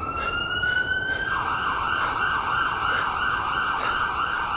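A siren-like wail: a tone that glides upward, then warbles quickly at about four cycles a second.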